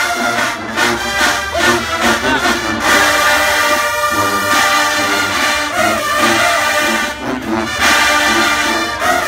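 College marching band playing loudly: a full brass section of trombones and trumpets sounding together over sharp drum hits.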